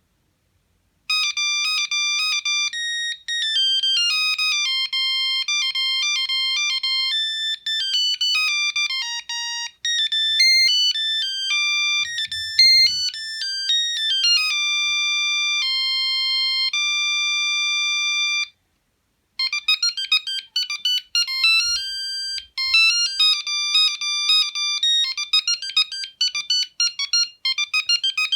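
Sony CMD-CD5 mobile phone playing its built-in ringtones: an electronic beeping melody of stepped notes starts about a second in. After a short break about 18 seconds in, a second, faster melody follows.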